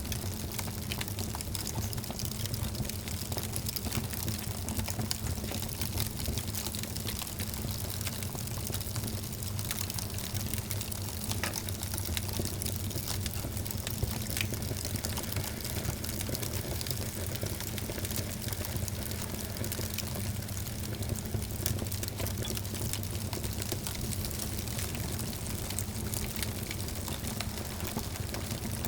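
Wood fire burning in a fireplace: many small crackles and pops over a steady low rumble of the flames.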